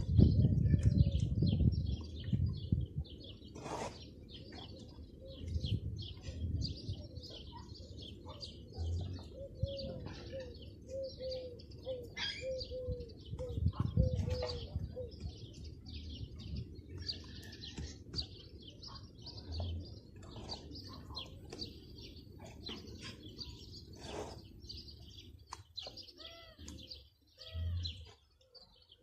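Small birds chirping continuously, with a dove cooing in a run of about eight repeated notes between roughly ten and fifteen seconds in. Low thuds and rustling from mud bricks being handled at a wall are loudest in the first few seconds and again about fourteen seconds in.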